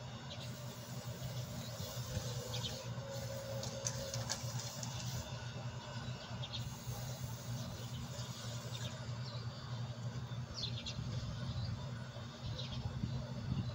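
Steady low hum of a hermetic refrigeration compressor running. Short high bird chirps come every second or two.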